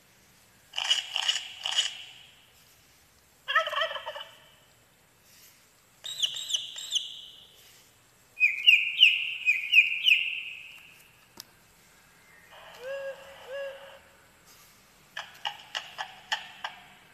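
Electronic sound-book panel playing short recorded farm-animal sounds one after another, about six in all with pauses between them, among them a turkey gobbling.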